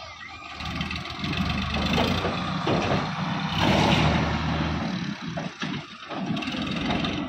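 Sonalika DI 750 RX tractor's diesel engine running as it pulls away with its tipper trailer raised, the engine sound growing louder about a second in. A brief rush of noise comes about four seconds in.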